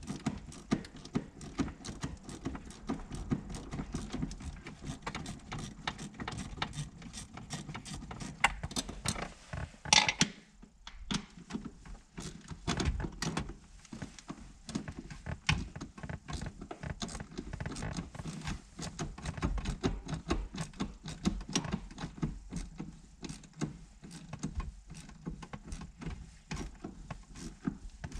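Hand ratchet with an 8 mm socket clicking in quick runs as it backs out small bolts, with a brief louder clatter about ten seconds in.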